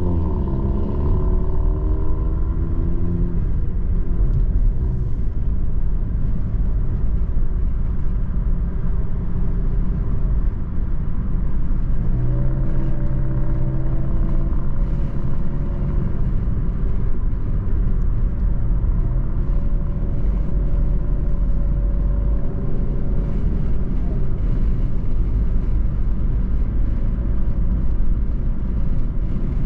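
Car driving on a city road, heard from inside the car: the engine's pitch rises as it accelerates away in the first few seconds, then a steady low rumble of engine and tyres while cruising, with a steady hum coming and going twice in the middle.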